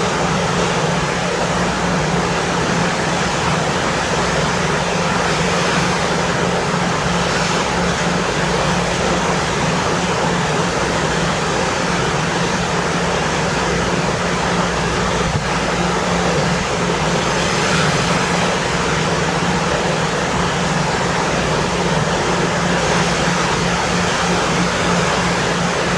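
Steady low drone of a ferry's engines under a constant rush of wind and sea, unchanging throughout.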